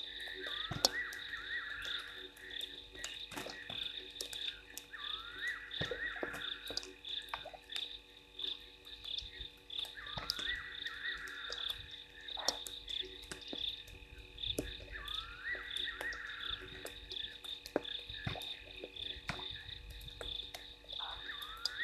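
Chorus of frogs calling at a waterhole at night: a steady high pulsing trill throughout, with a rising call about every five seconds that ends in a buzzy trill about a second and a half long. Scattered sharp ticks fall throughout, matching raindrops.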